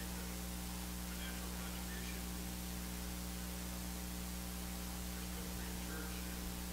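Steady electrical mains hum with hiss: a low, even buzz with several steady tones stacked above it.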